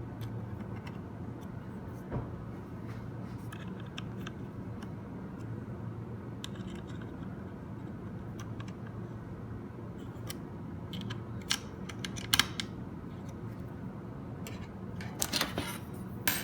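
Track-saw guide rail joining bars being handled and fitted into aluminium guide rails: scattered light metallic clicks and scrapes, the sharpest about eleven and twelve seconds in and a cluster near the end, over a steady low hum.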